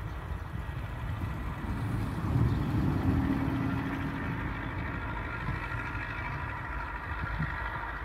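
A motor vehicle's engine rumbling steadily. It grows louder with a steady low hum about two and a half seconds in, then settles back to a low rumble.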